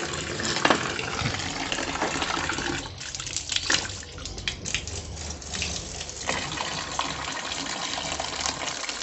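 Water gushing in a strong stream from the outlet valve of a homemade PVC-pipe sediment filter, splashing onto wet concrete. From about three seconds in, the splashing turns fainter for around three seconds, with a few light clicks, then comes back.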